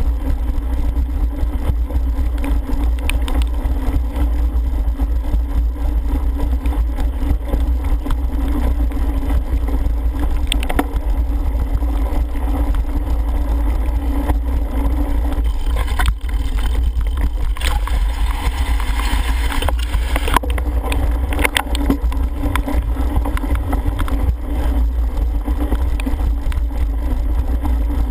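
Wind buffeting a helmet camera's microphone on a cyclocross bike at race speed, over the steady rumble of knobby tyres on wet grass and the clicks and rattle of the bike over the bumpy course. The hiss brightens for a few seconds about two-thirds of the way through.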